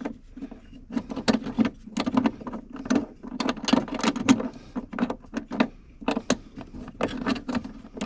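Irregular metallic clicks and taps of a bolt being worked and threaded into the bracket of a Fox-body Mustang's manual pedal assembly, over a steady low hum.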